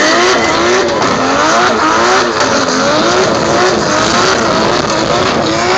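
Drift car doing victory skids: its engine revs rise and fall over and over as the rear tyres spin and screech, pouring out tyre smoke.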